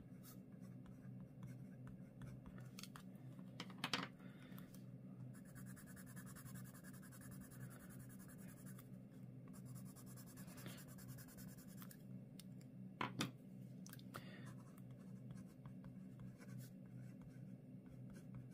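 Faint pencil scratching on paper: handwriting a label, then shading colour swatches with a Derwent Inktense watercolour pencil, over a low steady hum. Two light knocks, about 4 s and 13 s in, as pencils are put down on the wooden desk.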